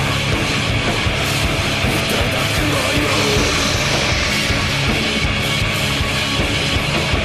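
Loud heavy rock music at a steady level.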